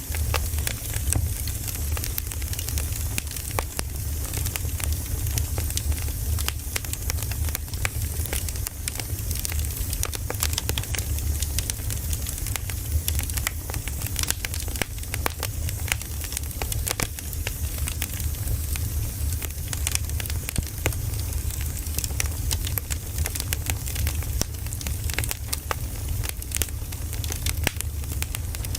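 Wood campfire crackling: many irregular sharp pops and snaps of burning wood over a steady low rumble.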